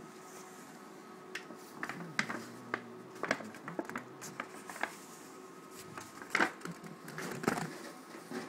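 Brown paper shopping bag rustling and crinkling in scattered, irregular bursts as a Great Dane puppy tussles with it, loudest about six seconds in.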